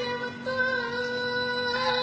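A boy singing, holding one long steady note from about half a second in, over a constant low drone.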